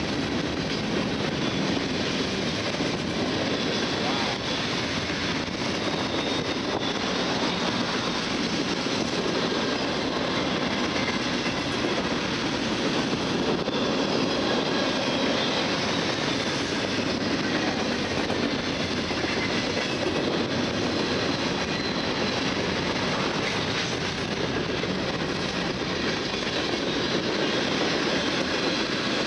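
Freight train's tank cars and covered hoppers rolling past at speed: a steady noise of steel wheels running on the rails.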